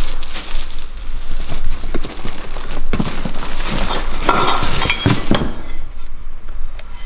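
Plastic packaging rustling and crinkling as parts are unpacked from a cardboard box, with scattered clicks and clinks of metal parts. The rustling is densest about four to five seconds in.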